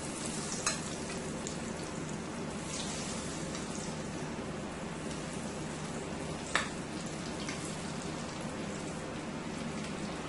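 Breaded shrimp frying in hot oil in a deep pot, a steady sizzle throughout. A few sharp clicks of the metal slotted spoon against the plate and pot, the loudest about two-thirds of the way through.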